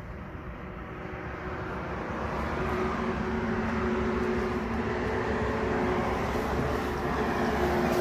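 Steady mechanical drone of motor-vehicle running noise with a low hum, growing louder over the first few seconds and then holding steady.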